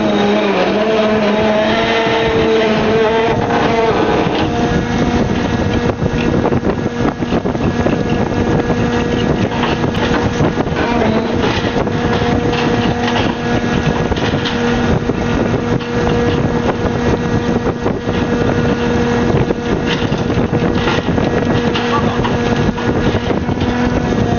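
Fishing boat's machinery running with a steady drone over a rough, noisy background.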